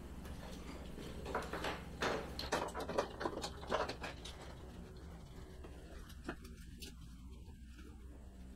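Curtain being pulled down off its rod: a run of clicks, rattles and fabric rustling between about one and four seconds in, then it settles.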